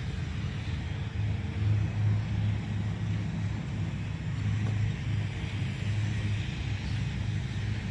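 Steady low rumble of a motor vehicle, with an even hiss above it.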